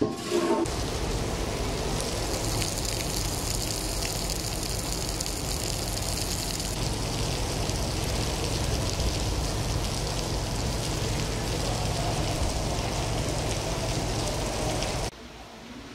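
Steady rush of running water with a low rumble underneath, cutting off suddenly about a second before the end.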